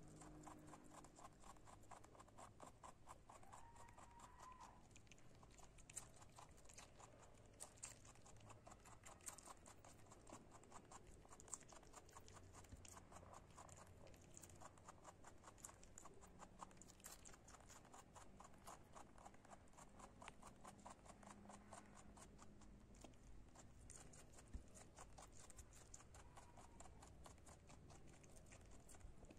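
A rabbit chewing shredded cabbage leaves: a faint, rapid run of crisp crunching clicks from its teeth.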